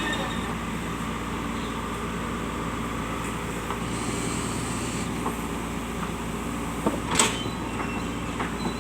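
Backhoe loader's diesel engine running steadily, with one sharp knock about seven seconds in.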